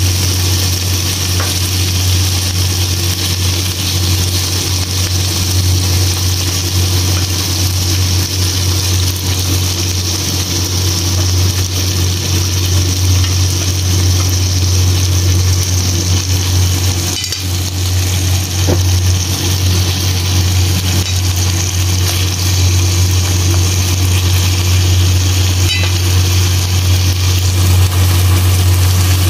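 Marinated chicken pieces sizzling steadily in a wok, frying in their own fat and marinade without added oil, over a constant low hum.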